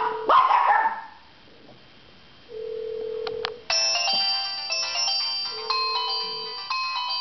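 A small dog howls twice near the start. After a pause, a cell phone rings: a held low tone, then a many-note melodic ringtone from about three and a half seconds in that plays on, with the low tone coming back near the end.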